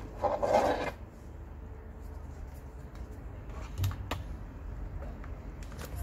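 Hands handling the internals of an opened laptop: a short rubbing, rustling noise about half a second in, then a few light clicks of plastic or metal parts around four seconds in.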